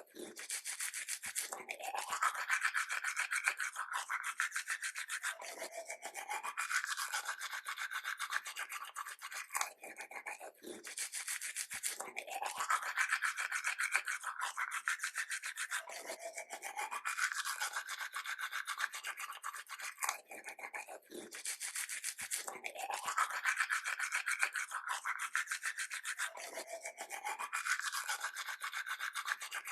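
Toothbrush scrubbing teeth: a continuous rapid back-and-forth rasp whose pitch sweeps up and falls back in repeating cycles about every five seconds.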